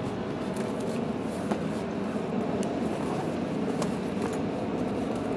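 Steady running drone of a high-pressure electric air pump, with a few light clicks and rustles of the boat's PVC fabric being handled.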